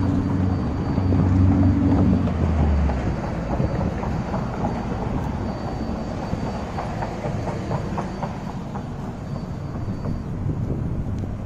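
Street traffic: a motor vehicle's engine hums low and steady as it passes close by, fading out about three seconds in. After that comes a steady rush of passing traffic and tyres, with faint scattered taps.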